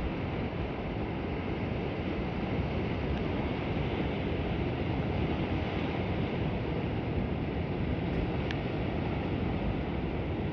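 Steady rushing noise of the sea, with a faint tick about eight and a half seconds in.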